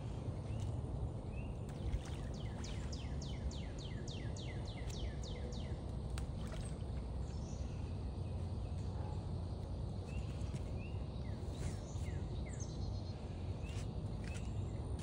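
A songbird singing: a quick run of about a dozen down-slurred notes, some three or four a second, a few seconds in, with short chirps before and after. Under it runs a steady low rumble.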